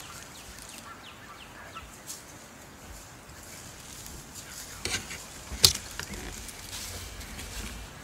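Quiet outdoor ambience with faint, short falling bird chirps, then a sharp click and, just after, a louder sharp knock a little past the middle, followed by a low rumble.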